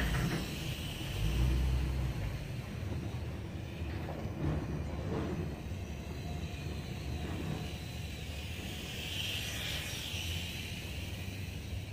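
Small micro quadcopter's motors giving a distant whine over a low rumble of wind and traffic. The whine swells louder for a moment about nine seconds in, as if the quad passes nearer.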